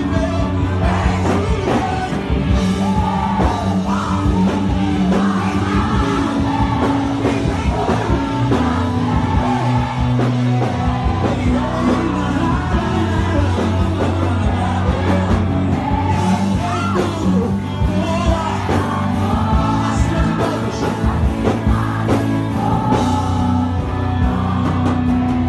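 Loud amplified Brazilian gospel worship music, with a man singing in Portuguese into a microphone over a steady bass and drum accompaniment.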